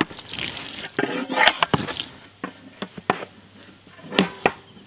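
Puttu rice flour being mixed by hand: a grainy, rustling hiss for about the first two seconds, then scattered knocks and clinks.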